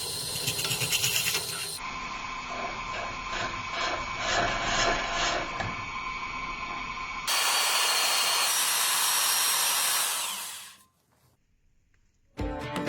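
Woodturning on a lathe: a tool working a spinning wooden workpiece, heard in several short cut-together clips, the last a steadier, louder stretch that fades out about eleven seconds in. Music begins right at the end.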